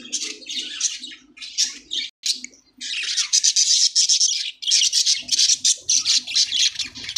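Caged budgerigars chattering: rapid high chirps and warbles overlapping. They break off briefly about two seconds in, then run on denser and louder.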